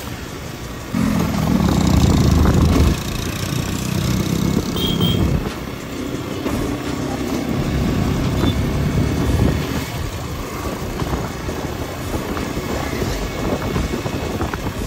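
Motorcycle engine running under way, with road and wind noise on the microphone; the engine note swells about a second in, drops back after about three seconds, and rises again for a few seconds in the middle.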